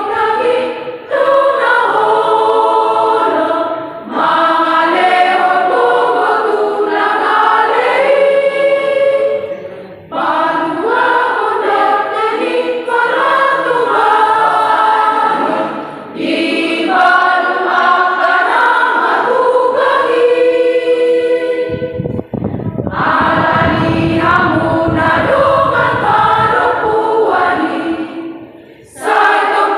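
Women's church choir singing a hymn together, in phrases separated by brief pauses. A low rumble sits under the singing for the last several seconds.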